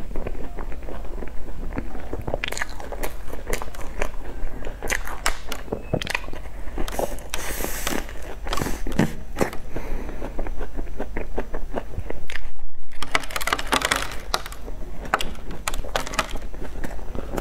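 Close-miked eating: bites into crumb-topped cream puffs and chewing, with crackly crunches from the crumbly crust and soft mouth sounds.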